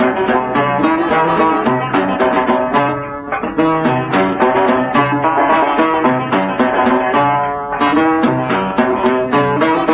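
Instrumental break of an Algerian chaabi ensemble: plucked string instruments play a busy melody over a repeating low note pattern.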